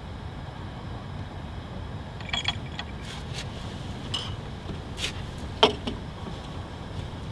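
A steady low rumble with a few small clicks and clinks scattered over it, the loudest a little past halfway.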